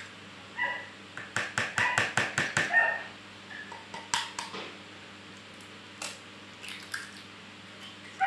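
Eggs being cracked by hand: a quick run of sharp taps of eggshell on hard rims about a second in, then scattered single taps and clinks of shells on glass and the plastic bowl.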